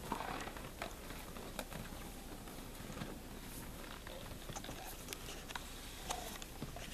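Scottish Highland and Angus cattle pulling and chewing hay: irregular crunching and rustling with scattered soft clicks.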